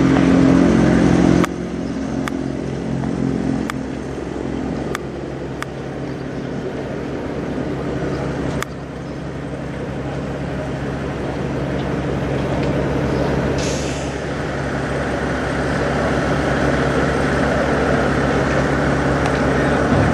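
Diesel truck engine idling steadily, a low even drone, with a short hiss of air, like an air-brake release, about two-thirds of the way through.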